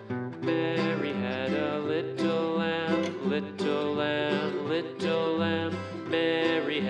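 Background music led by plucked guitar, in a country style.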